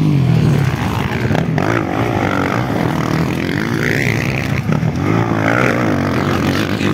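Motocross dirt bike engines revving hard as the bikes race past on the dirt track, the pitch rising and falling again and again with the throttle.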